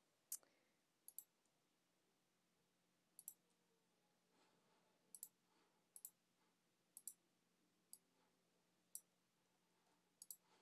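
Faint computer mouse clicks, about a dozen spread irregularly, several in quick pairs like double-clicks.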